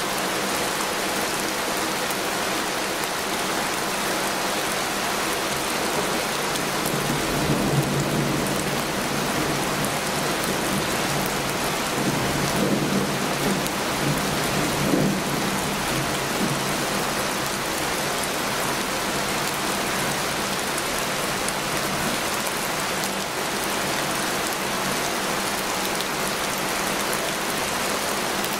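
Heavy rain falling in a dense, steady hiss. Low rumbles swell up about seven seconds in and again from about twelve to fifteen seconds.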